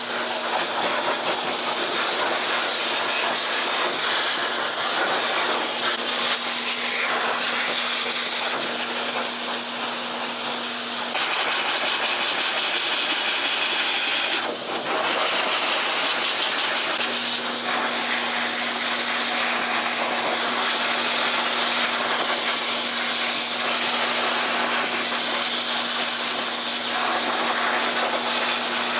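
Pet grooming dryer blowing onto a freshly bathed dog in a crate: a loud, steady rush of air with a motor hum under it. The hum drops out for several seconds about halfway through, then returns.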